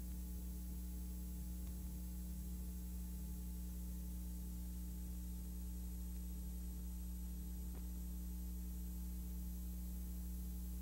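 Steady electrical hum with a faint hiss on an otherwise silent soundtrack.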